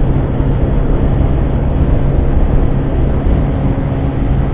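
Yamaha Factor 150's single-cylinder four-stroke engine running at a steady high speed near full throttle, at about 120 km/h, with a constant unchanging engine note.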